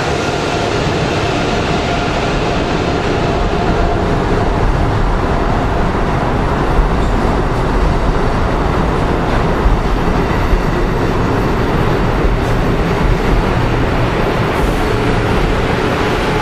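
Amtrak Acela Express trainset rolling past, its coaches making a steady loud rush of wheel and rail noise, with a few sharp clicks as the wheels cross the rails.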